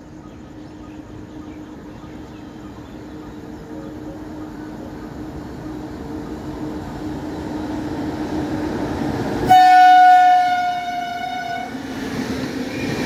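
An express train hauled by an electric locomotive approaching, its running noise growing steadily louder. About nine and a half seconds in, the locomotive's horn sounds one long blast of about two seconds, the loudest sound, and then the locomotive and coaches rush past close by.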